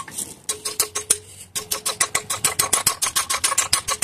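Rapid metallic clicking, about eight clicks a second, with a faint ring. It comes from a wrench levering on a quenched and quick-tempered 1095 steel test piece clamped in a vise.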